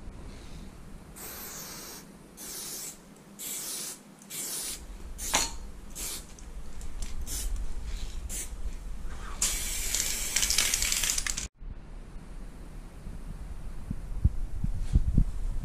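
Aerosol spray paint can hissing in a series of short bursts, then one longer spray of about two seconds that stops abruptly; after that only faint, steady, low background noise.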